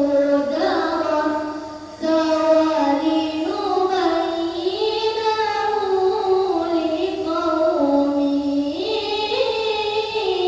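A child's voice reciting the Quran in the melodic tilawah style, drawing long, ornamented notes that glide between pitches. The phrase fades just before two seconds in, and a new one begins at once.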